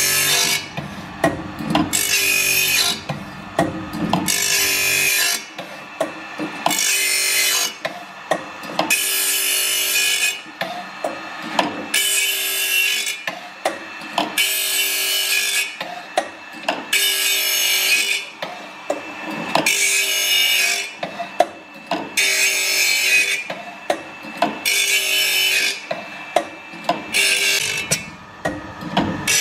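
Grinding wheel of a carbide circular saw blade sharpening machine (OSW-5M) grinding the saw's teeth one after another, a hissing grind about a second long repeating about every two and a half seconds, with short clicks between passes over the steady hum of the motor. A heavy regrind of a blade whose carbide tips are chipped.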